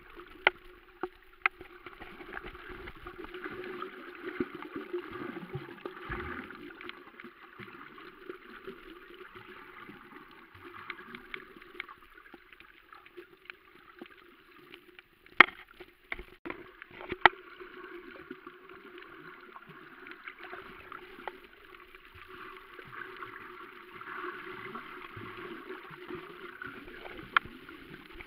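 Underwater ambience picked up by a submerged camera microphone: a steady muffled water rush over a low hum, broken by a few sharp clicks, the loudest about halfway through.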